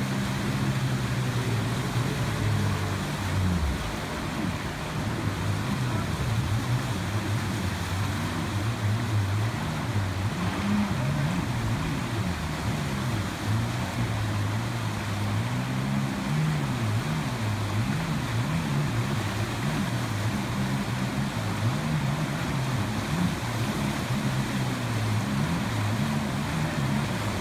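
AlumaPro rescue personal watercraft's jet-drive engine running with the throttle constantly worked up and down, its pitch rising and falling every second or two as the rider holds the craft in the current. Rushing whitewater underneath, with a brief lull in the engine about four seconds in.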